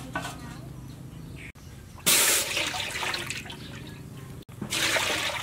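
Water poured from a bucket into a large aluminium pot, a loud splashing rush starting about two seconds in, breaking off suddenly and starting again near the end.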